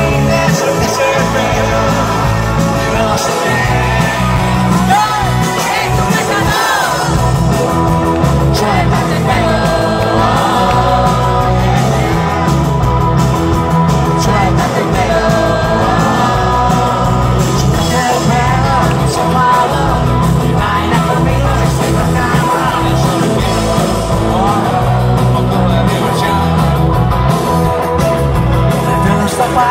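A live rock band playing loudly through a concert PA, heard from the audience: electric guitars, bass guitar and saxophone over drums and keyboards.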